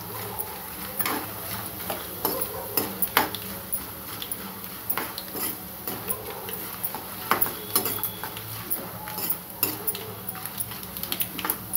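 Metal ladle scraping and clicking irregularly against a pan while stirring peanuts, chana dal, garlic and curry leaves frying in oil, with a faint sizzle of the hot oil underneath.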